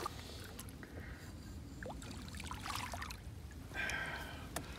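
Wind rumbling on the microphone and faint water lapping against a small boat on a lake. A brief higher rattling hiss comes near the end.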